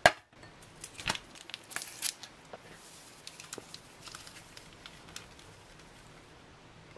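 A sharp click at the very start, then a thin paper stick packet being torn open with a few short rips. Faint light rustling and ticks follow as its contents are poured out.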